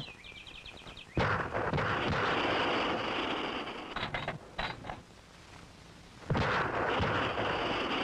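Two shots from a Remington 5mm rimfire magnum rifle, about five seconds apart, each a sharp crack followed by a few seconds of trailing noise. There are a few sharp clicks shortly before the second shot.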